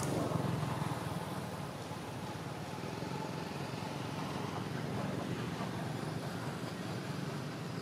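Steady low rumble with a hiss over it, the outdoor background noise of the place, slightly louder in the first second.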